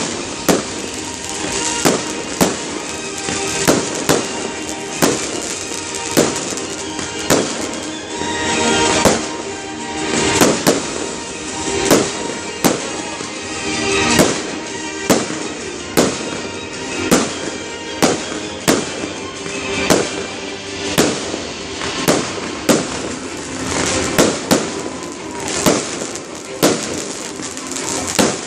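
Fireworks display shells bursting one after another, about one to two bangs a second, with music playing underneath.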